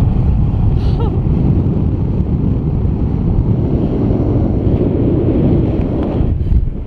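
Wind rushing over the microphone of a camera held out from a tandem paraglider in flight: a loud, steady low rumble of airflow.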